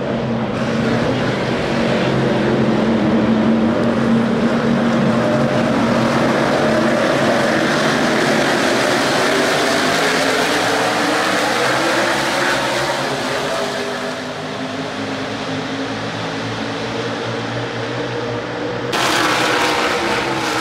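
NASCAR Cup Series stock cars' V8 engines running at race speed around the oval, several at once, their pitch slowly rising and falling as they pass. A louder, closer car cuts in near the end.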